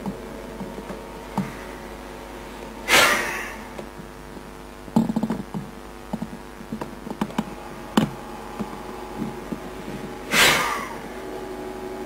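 Two sharp, forceful exhalations, one about 3 seconds in and one near the end, each a loud rush of breath that dies away within a second: the pulsed breath used to charge water with a quartz crystal. A steady hum runs underneath, with scattered small knocks and clicks between the breaths.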